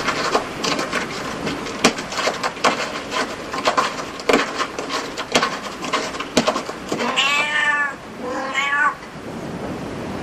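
A domestic cat meowing twice, two short calls that rise and fall in pitch, about seven and eight and a half seconds in. Before the meows comes a run of irregular sharp clicks.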